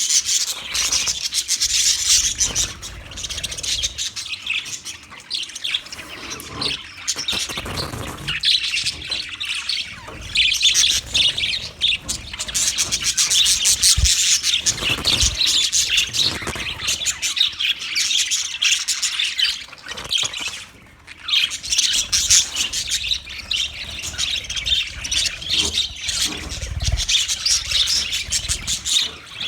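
Budgerigars chattering and chirping continuously, a fast stream of warbles, chirps and squawks.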